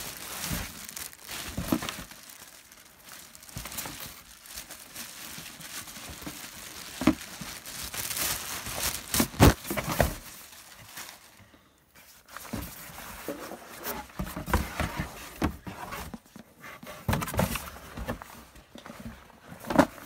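Cardboard box and plastic packaging being opened and handled by hand: irregular crinkling and rustling with a few louder rips and knocks near the middle, a short lull, then more handling.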